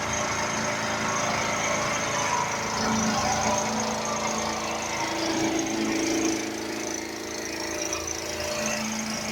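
Pressure washer running steadily: a motor-driven pump drone with the hiss of the high-pressure water jet.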